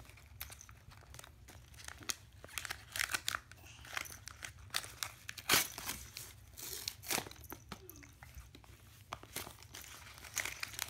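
Red paper gift wrap crinkling and tearing in irregular crackles as a child's hands pull it off a small box, with the loudest rustle about five and a half seconds in.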